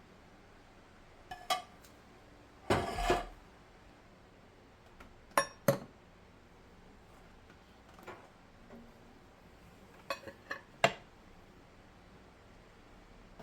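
Kitchen dishes and utensils clinking and knocking in an uneven scatter of sharp clinks, with a brief scraping rattle about three seconds in.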